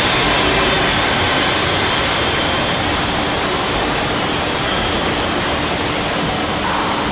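Loud, steady industrial machinery noise: an even hiss and rumble with a few faint steady hums.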